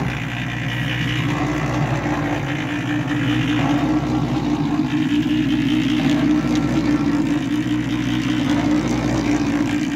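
Electric drum concrete mixer running with a steady motor hum while sand-cement mortar churns in the rotating drum.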